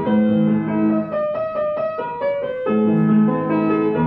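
Young Chang U121 upright piano played with both hands: sustained low chords under a melody, a quick passage of short notes in the middle register about a second in with the bass dropping out, then the low chords come back.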